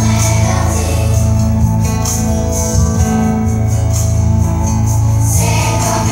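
A pop song with a group of young voices singing over a band, with heavy bass and a steady beat of high jingling percussion.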